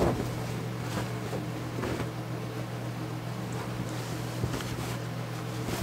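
A steady low mechanical hum throughout, with the rustle and soft flaps of cloth sheets being thrown over a stack of sawn boards, a few times over.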